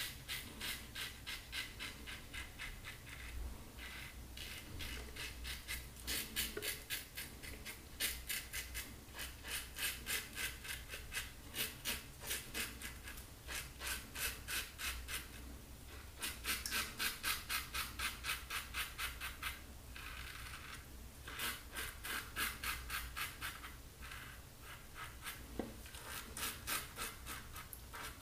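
Fine Marvel double-edge safety razor scraping through lathered stubble in runs of short, quick strokes with brief pauses between them, on a final pass against the grain.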